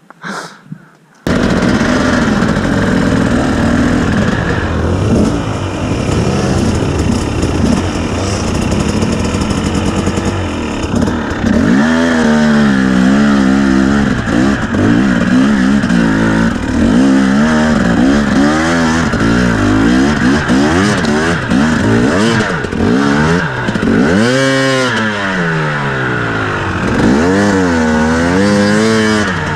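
KTM two-stroke enduro motorcycle being ridden, its engine running hard; it starts abruptly about a second in, and in the second half the revs rise and fall again and again as the throttle is worked.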